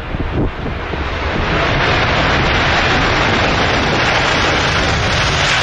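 Boeing 747-8F freighter's four GEnx-2B jet engines just after touchdown. Their noise swells about a second in to a loud, steady jet rush as the aircraft rolls out on the runway.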